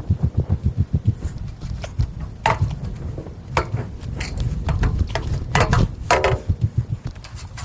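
Irrigation pipe sections clanking as they are pulled apart: several sharp, ringing strokes, three of them close together near the end, over a fast, steady low fluttering rumble.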